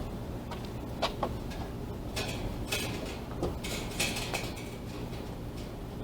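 A series of short metallic clanks and rattles over a steady low hum.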